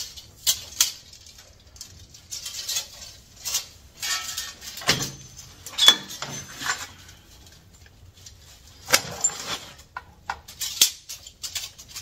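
A steel tape measure being pulled out and handled against metal suspension parts: scattered clicks, clinks and rattles, with a couple of dull knocks.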